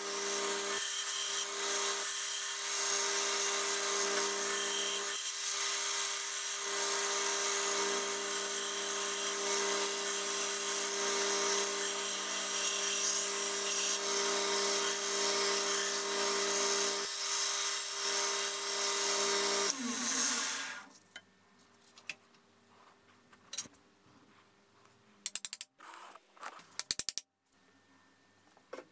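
A 2x72 belt grinder running, with the steel tang of a tool forged from a ball-bearing race held against the belt: a steady loud grinding hiss over the motor's hum. About twenty seconds in, the grinder is switched off and spins down, and a few short clicks and knocks follow.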